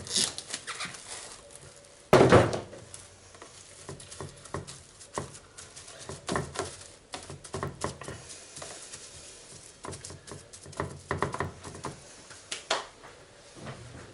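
Plastic cling film being pulled off its roll and pressed down over a salmon fillet on a tray: a louder rasping burst about two seconds in, then scattered small crinkles and crackles of the film under the hands.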